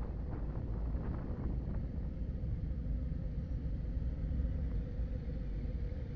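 Low, steady rumble of touring motorcycle engines as a group of bikes slows and rolls to a stop at a red light, with wind buffeting the microphone in the first couple of seconds, then easing.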